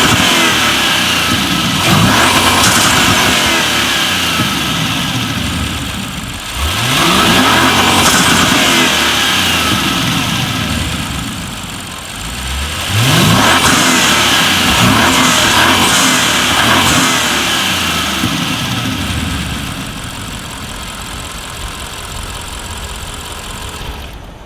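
Audi RS6 Performance's 4.0 TFSI twin-turbo V8 through an Akrapovic exhaust, accelerating hard three times about six seconds apart. Each time the engine note climbs, then gradually quietens. Near the end the sound fades before cutting off.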